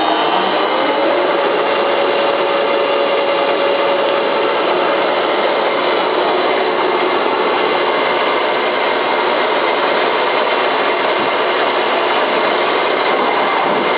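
A rebuilt machine running steadily under power: an even rushing noise with a steady whine that settles in about a second in.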